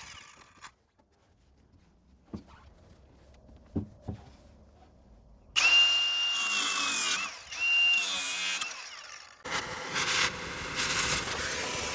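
Power tool in short bursts: a high steady whine that dips briefly as it stops, twice, starting about five and a half seconds in, then a rougher, more ragged grinding noise near the end. Before that, a few faint clicks in near quiet.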